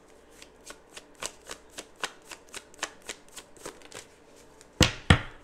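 Tarot cards being shuffled: a quick run of soft card flicks at about four a second, then two sharper slaps of the cards near the end.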